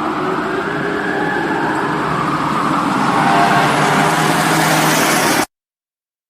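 Emergency vehicle siren wailing in a slow rise and fall over steady city traffic noise, cutting off abruptly to dead silence about five and a half seconds in.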